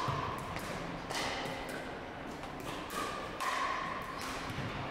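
Pickleball paddles striking a hollow plastic pickleball in a rally: a string of sharp pops roughly a second apart, echoing around a gymnasium.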